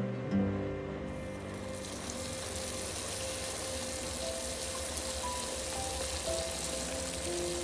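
Pieces of baursak yeast dough sizzling as they deep-fry in hot vegetable oil in a steel bowl; the sizzle starts about a second in as the dough goes in, then holds steady.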